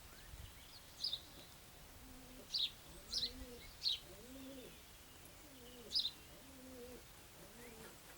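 Birds calling: about five short, high chirps, and from about two seconds in a low, repeated cooing call.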